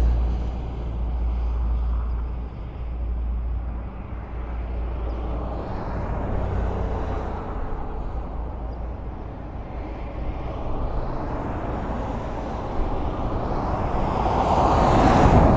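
Highway traffic: a continuous rush of tyres and engines with a deep low rumble. A vehicle passes close near the end, its noise swelling and peaking just before the sound ends.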